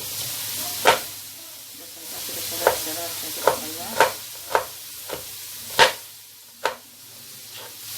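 Thinly sliced onions sizzling as they sauté in a hot pan, with a utensil knocking against the pan about eight times as they are stirred.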